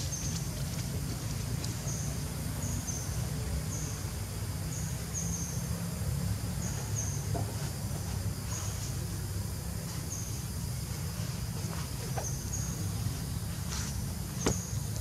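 Outdoor forest ambience: a steady low rumble with short, high-pitched chirps from a small animal repeating every second or so, and a couple of sharp clicks near the end.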